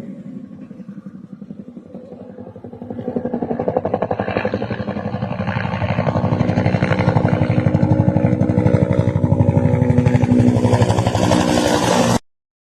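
Helicopter flying over with a fast, even rotor thump, growing louder over the first several seconds and then holding steady before cutting off abruptly near the end.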